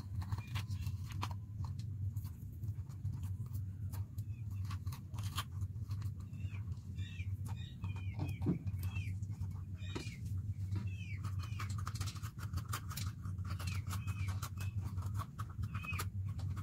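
Small knife cutting the stems and seed cores out of green bell peppers (capsicums) on a steel plate: scattered crisp clicks and crunches. Birds chirp in the background over a steady low hum.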